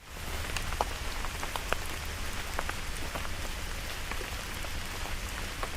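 Fast typing on a mechanical keyboard with Akko Matcha Green V3 Pro linear switches: many quick, irregular key strokes running together.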